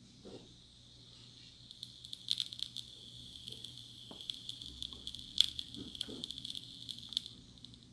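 Rosin (solder flux) sizzling and crackling as it is heated in a small smoke-making heater and boils off as white smoke. It makes a steady hiss with many sharp little pops, starting about two seconds in and stopping about seven seconds in.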